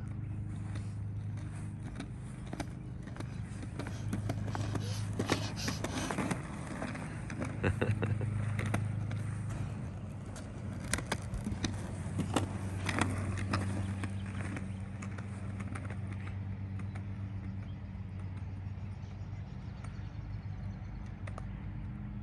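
Small wheels of a child's three-wheeled kick scooter rolling and rattling over a concrete sidewalk, with clicks at the slab joints. The rattle grows loud through the middle as it comes close, then fades, over a steady low hum.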